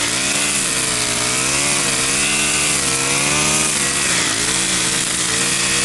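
Gas-powered string trimmer running, its engine pitch wavering up and down as the line cuts through grass.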